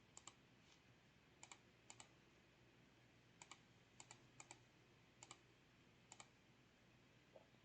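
Faint computer mouse clicks, each a quick press-and-release pair, about eight of them at irregular intervals over a low, steady room hiss.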